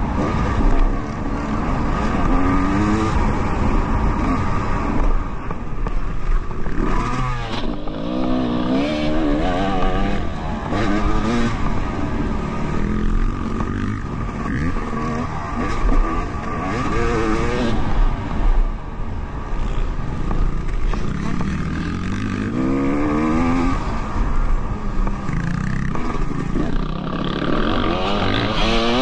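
Dirt bike engine heard from on board while riding a motocross track. The engine rises in pitch again and again under acceleration, about every few seconds, and drops back in between as the rider shifts and eases off for turns.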